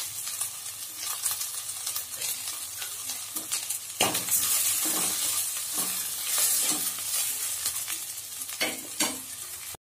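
Sliced shallots, garlic and green chillies with freshly added chana dal sizzling in hot oil in a non-stick pan. From about four seconds in a wooden spatula stirs them, adding irregular scrapes and knocks over the steady sizzle, which breaks off for a moment near the end.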